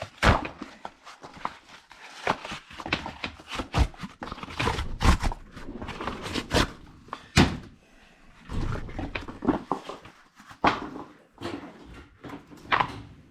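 Irregular knocks, clunks and scraping as a cut-open Fleetguard LF692 steel spin-on oil filter is handled and its pleated paper media worked out of the canister.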